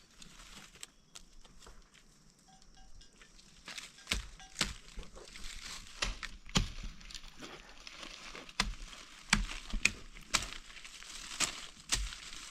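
Irregular sharp knocks and crunches, starting about four seconds in and coming at uneven intervals, sometimes several a second, over a light steady hiss.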